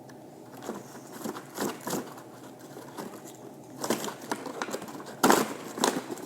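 Handling noise: an irregular run of scrapes and sharp clicks, with the loudest cluster about five seconds in.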